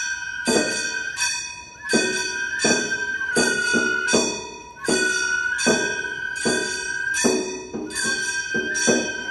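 Gion bayashi festival music played live on a float: small brass hand gongs (kane) struck in a quick, uneven rhythm and ringing on, over a bamboo flute holding long high notes that step up and down slightly.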